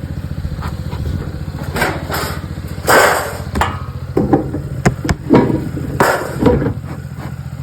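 A small engine running steadily at idle, with a few sharp knocks and clatters over it, the loudest about three seconds in and again about five and a half seconds in.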